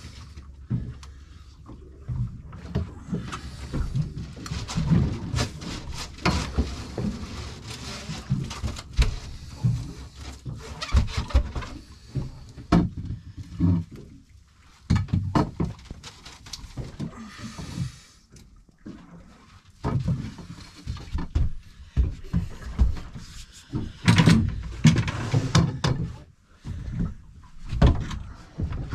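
Irregular knocks, bumps and rustles from a landing net and gear being handled at the stern of a small fishing boat, with a cluster of louder knocks near the end.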